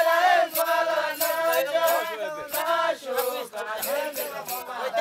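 Voices chanting a rhythmic song, with a steady beat of sharp percussive strikes roughly twice a second.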